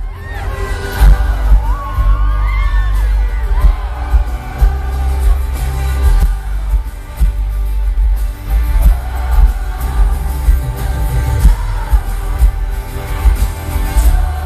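Live pop-rock band playing with a male lead vocal, amplified through an arena sound system, with heavy bass and a steady beat.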